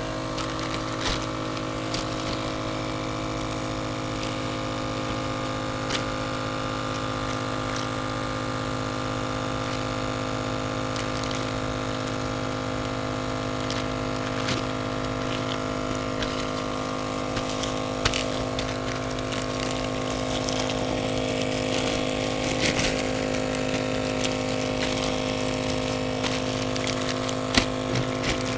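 FoodSaver vacuum sealer's pump running steadily, drawing the air out of a plastic UMAi dry-aging bag around a ribeye loin. A few light clicks sound over the hum.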